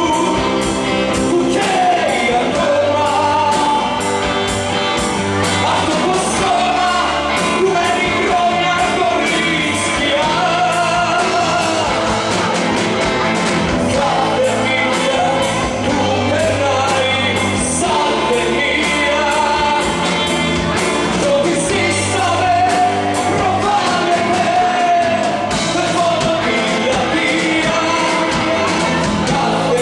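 Live rock band playing a song: male voices singing over electric and acoustic guitars, bass and a steady drum beat.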